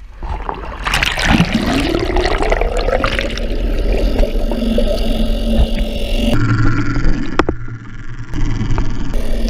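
Underwater sound beside a moving inflatable dinghy: water rushing and gurgling around the submerged camera, with a whine that rises in pitch about a second in and then holds steady. The sound changes abruptly about six seconds in.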